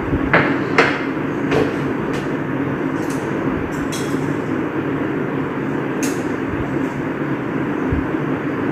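Steady, loud mechanical whir of a running fan, with sharp clacks as the plastic air fryer basket is pulled out and chicken wings are laid into it with tongs. The loudest clacks come in the first second.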